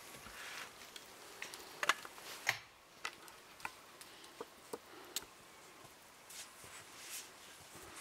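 Scattered light knocks and clicks as firewood is handled in a wooden log carrier and a wooden woodshed door is shut and latched. Near the end come faint steps through snow.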